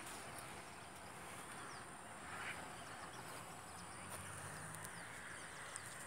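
Faint outdoor ambience: an even low hiss with a few short, faint chirps of distant birds.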